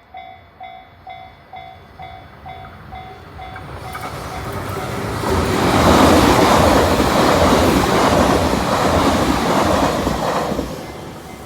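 JR standard electronic level-crossing warning bell ringing in even pulses, about two and a half a second. From about four seconds in a train passes over the crossing, its wheel and running noise building to a loud rush that drowns the bell and fades near the end.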